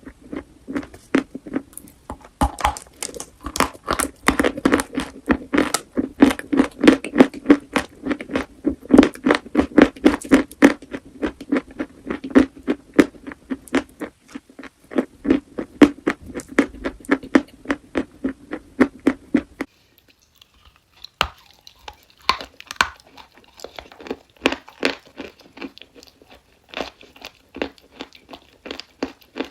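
Chalk being bitten and chewed close to the microphone: a fast run of dry crunches. About two-thirds of the way through it changes abruptly to sparser, lighter crunching.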